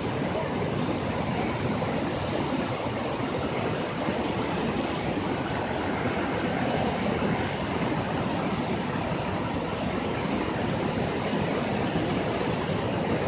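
The Godavari River in flood, its fast water rushing in a steady, unbroken noise.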